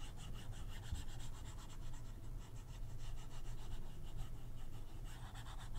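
Tablet stylus rubbing and scratching across a drawing tablet's surface in many quick, quiet strokes while colouring in an area.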